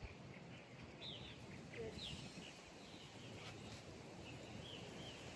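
Faint birds chirping in the background, short falling chirps coming a couple of times a second, over a low steady rumble of outdoor noise.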